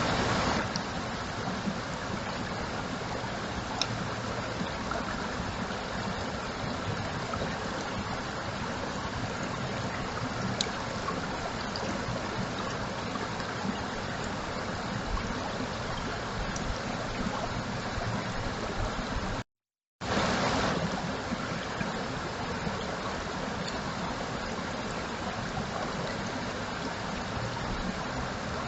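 Steady rushing of flowing water, like a stream, broken by a moment of silence about twenty seconds in.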